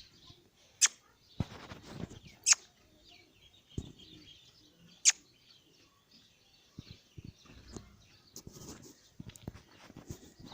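Birds chirping: three short, loud, sharp calls about a second, two and a half and five seconds in, with fainter high chirping between.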